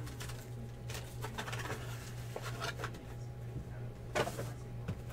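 Soft handling noises: a trading-card box being turned over in the hands and set down on a tabletop, a few light taps and rustles, with a slightly louder knock or rustle about four seconds in. A steady low hum runs underneath.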